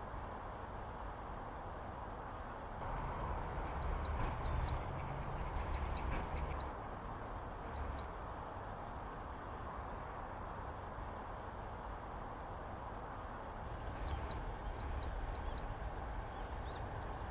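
Zitting cisticola singing: sharp, very high single notes in quick runs of four or five, with pauses of a few seconds between runs. A low rumble of wind on the microphone lies underneath.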